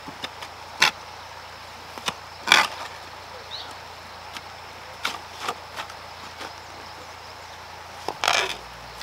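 Hoes striking and scraping through lumpy, stony garden soil: irregular chopping thuds a second or more apart, the loudest about two and a half seconds in.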